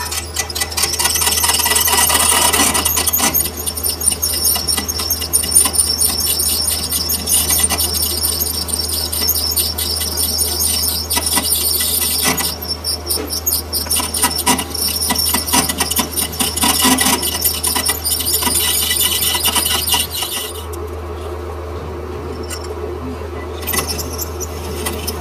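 Metal cutting on a lathe: the cutting tool squeals against the steel workpiece, a high-pitched squeal with a fast chatter. The squeal cuts off about 20 seconds in, leaving a steady low machine hum.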